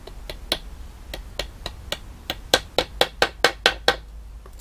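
Small hammer tapping a thin nail into a wooden frame: about fourteen strikes, a few light taps first, then quicker, harder blows about four a second, stopping about four seconds in.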